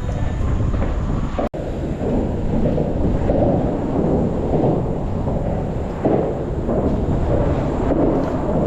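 Loud, steady low rumble under a bridge, with gusty buffeting from wind on the microphone; the sound cuts out for an instant about a second and a half in.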